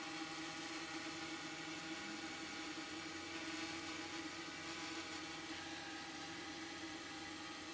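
Tarot 680 hexacopter's motors and propellers humming steadily in a hover, with a slight rise in pitch about two seconds in.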